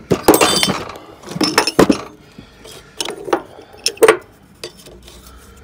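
Metal motor-mount bushing and spacers clinking and rattling as they are handled, four or five separate clatters with a bright metallic ring.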